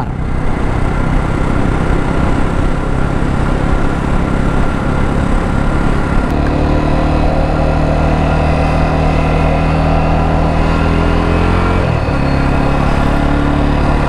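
Jawa motorcycle's single-cylinder engine running while being ridden, with wind noise over it for the first few seconds. About six seconds in the engine note turns steady and even, and near the end it dips briefly and picks up again at a slightly different pitch.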